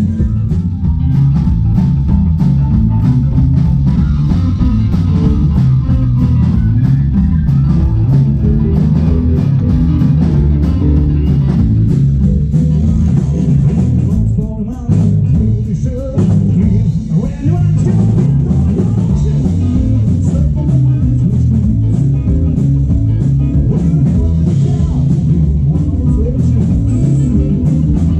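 Live rock-blues band music played loud, with electronic keyboard parts over heavy bass and a steady drum beat; the music briefly thins out about halfway through.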